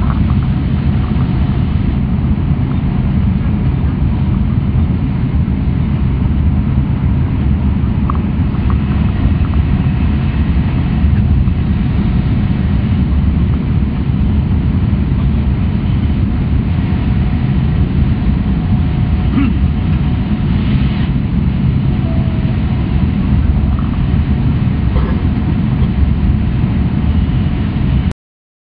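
Steady low rumble inside an E6 series Shinkansen car running at high speed, with a few faint squeaks and ticks above it; it cuts off suddenly near the end.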